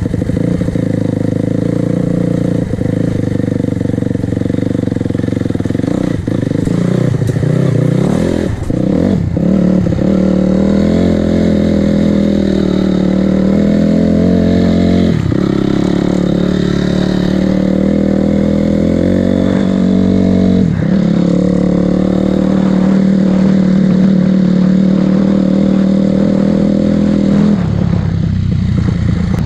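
Honda CRF250R's single-cylinder four-stroke engine running under way on a ride, loud and close. The engine note changes abruptly several times, about every six seconds, as revs and gears change.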